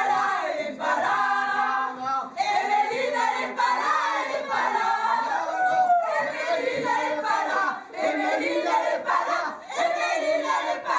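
A group of men and women singing together in chorus, with some shouting among the voices.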